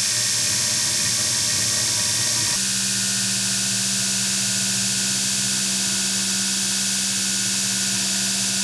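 Belt grinder running, its abrasive belt grinding steel pipe against a contact wheel to cope the pipe ends: a steady, loud grinding hiss over a motor hum. The sound changes abruptly about two and a half seconds in, and a steadier hum takes over.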